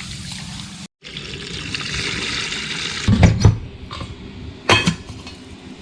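Water running from a tap for a couple of seconds, then a few loud knocks and clatters.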